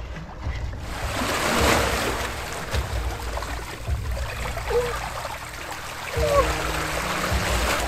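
Small sea waves washing and splashing over shoreline rocks, a steady wash of water that swells about a second in.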